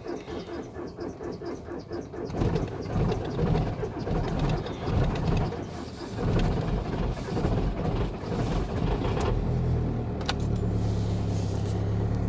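A 1.9 TDI four-cylinder diesel engine is cranked by its starter with an even chugging rhythm for about two seconds. It then catches and runs rough and uneven before settling into a steady idle near the end.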